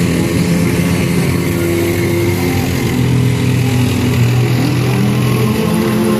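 Banger racing stock car engines running and revving, their pitch rising and falling.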